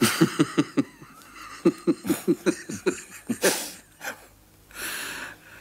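Men laughing out loud: two runs of quick, rhythmic "ha-ha-ha" pulses, then breathy gasps of laughter near the end.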